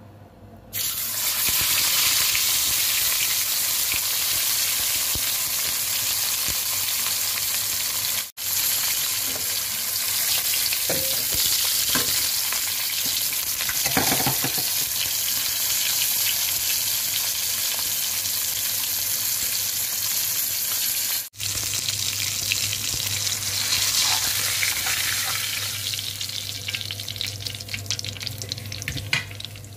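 A whole yellow croaker frying in hot oil in a stainless wok, a steady loud sizzle. It starts suddenly, breaks off abruptly twice and resumes, and grows lighter and more crackly near the end.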